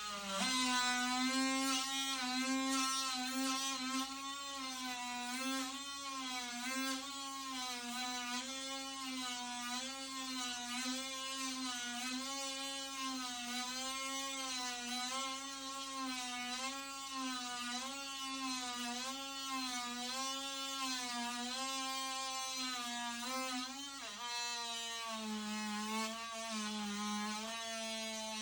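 A small electric motor running with a steady buzzing whine whose pitch wavers evenly about once a second; about 24 seconds in the pitch drops slightly lower.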